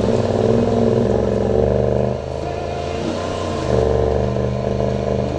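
Honda Pioneer side-by-side's engine running as it drives slowly along the trail, easing off about two seconds in and picking up again a little later as it gathers speed.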